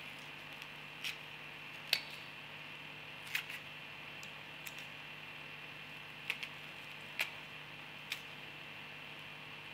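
Dry, papery onion skin crackling and tearing as it is peeled by hand: short crisp crackles about a second apart, the sharpest about two seconds in, over a faint steady hiss and hum.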